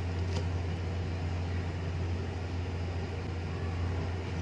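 A steady low hum with a background hiss, and one faint click about half a second in.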